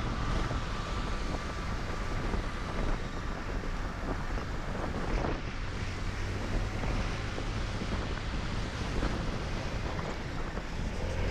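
Wind buffeting the microphone on a moving Honda Activa scooter, over the steady hum of its single-cylinder engine.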